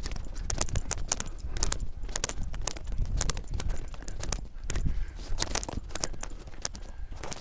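Small metal objects jingling and clicking irregularly, over a steady low rumble of wind on the microphone.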